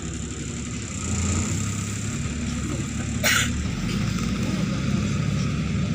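Neman city bus's diesel engine running, heard from inside the passenger cabin, its note picking up about a second in as the bus pulls harder. A brief sharp high sound cuts in once, about three seconds in, over a faint steady high whine.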